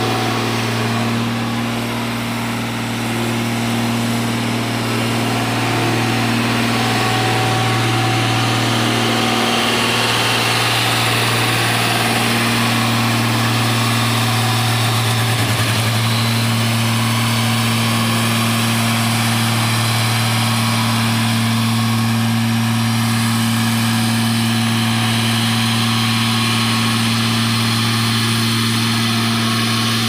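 Diesel engine of a single-drum road roller running steadily as the roller travels over the road bed, a constant low engine hum throughout.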